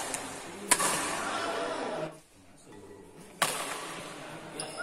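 Badminton rackets striking a shuttlecock during a doubles rally: two sharp hits about two and a half seconds apart, each ringing on in the hall's echo.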